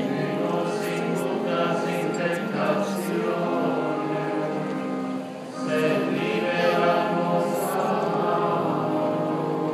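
Choir singing a sacred chant in long, sustained notes, with a short break about five seconds in before the singing resumes.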